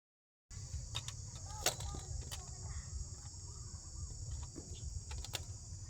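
Outdoor field ambience: insects droning steadily in a high pitch, with a low wind rumble on the microphone and scattered sharp clicks.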